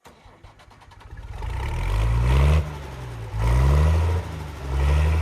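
Large diesel engine cranking with a quick run of starter clicks, catching, then revving up three times, its deep pitch climbing with each rev and dropping between them.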